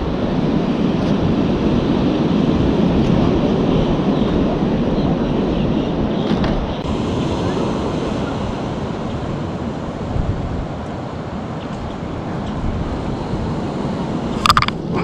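Wind buffeting the microphone over the steady wash of ocean surf. A short, sharp sound comes near the end.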